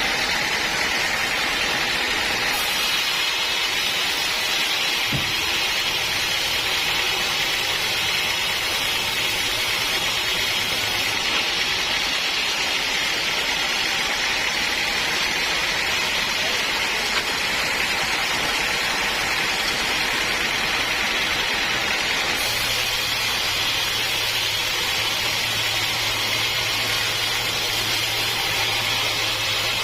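Sawmill saw running steadily, a constant hiss-like machine noise with no breaks; a low hum joins in about two-thirds of the way through.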